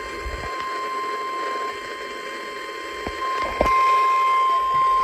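Weather-radio warning alert tone: one steady high-pitched beep over a low hiss, faint at first, then louder after a click about three and a half seconds in. It marks the start of a severe thunderstorm warning broadcast.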